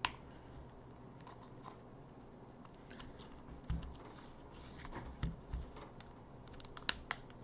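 Scattered small clicks and taps of an opening tool and handling against an iPhone 6s Plus as its screen is worked loose from the adhesive seal, with a sharp click at the start and a few louder taps later.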